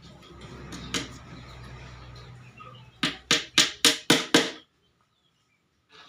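Six quick hammer blows in a row, about four a second, typical of a nail being driven into wood. Before them, a steady low hum and a single knock.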